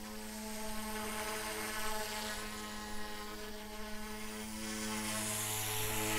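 XK K130 micro RC helicopter in flight: a steady electric whir from its rotors, with a high whine from the tail rotor that wavers in pitch, growing louder toward the end.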